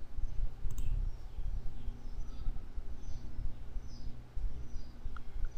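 Steady low background hum of room and microphone noise, with faint short bird chirps now and then. A single mouse click comes about a second in.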